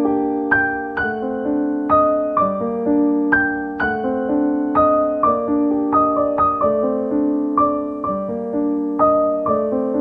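Background piano music: notes and chords struck at an even pace of about two a second, each ringing on and fading.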